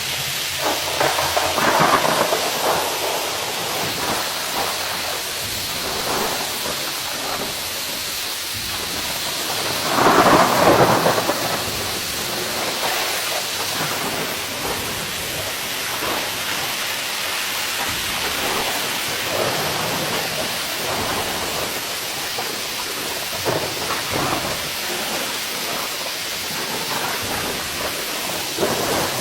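Heavy rain falling steadily, a dense hiss of drops that swells louder for a moment about a third of the way through.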